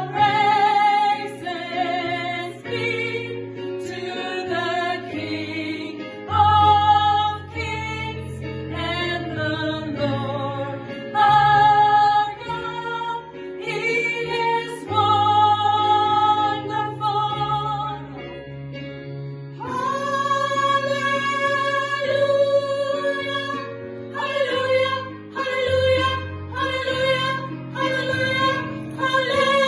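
Gospel choir singing with instrumental accompaniment and a steady bass line; the voices swell into long held chords about two-thirds of the way through.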